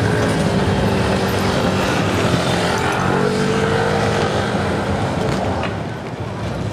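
Alstom TFS tram running close by, its traction motors giving a steady whine that rises a little in pitch about halfway through, over a low rumble.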